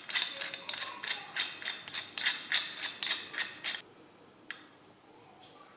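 Steel adjustable spanner's adjusting worm turned by thumb, giving a run of sharp metallic clicks, about three a second, that stops about four seconds in, then one more click.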